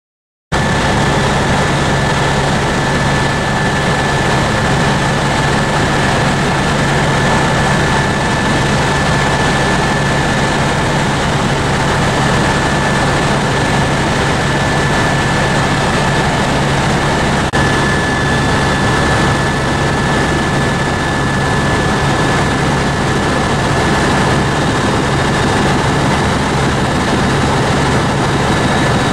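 Tour helicopter in flight, heard from inside the cabin: a steady engine and rotor rush with a constant high whine and a low hum. It starts about half a second in.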